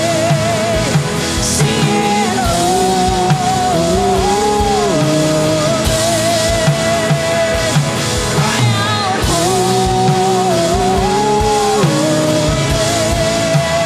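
Live worship band playing: drum kit, electric and acoustic guitars, with a woman singing long held notes with vibrato that step up and back down every few seconds, over regular drum hits.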